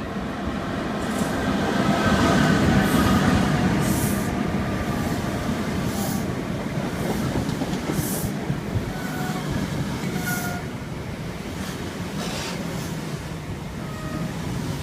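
Virgin Trains 'Pretendolino' train running along the platform, loudest about two to three seconds in. The wheels give short squeals, and there are repeated brief rattles over the rumble of the running train.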